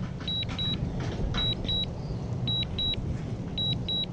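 Drone remote controller giving pairs of short, high electronic beeps about once a second while the DJI Mini 2 flies home on return-to-home, over a steady low rumble.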